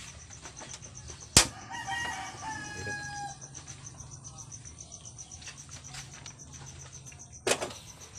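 A sharp loud click from a gas stove burner being lit, followed by a rooster crowing for about a second and a half, over a steady background chirring of crickets. Another knock comes near the end.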